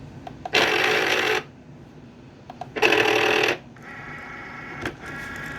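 Cricut cutting machine giving two loud grinding bursts of under a second each, then a quieter motor whir: the machine is failing to load the cutting mat.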